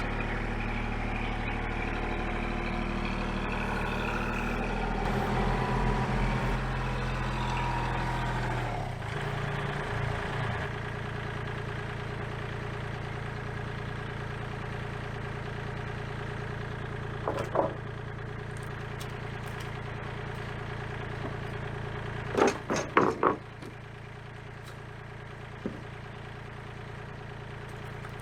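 Engine of a farm vehicle running steadily, dropping to a lower, quieter idle about nine seconds in. A few short knocks come through later, a pair near the middle and a cluster about two-thirds of the way through.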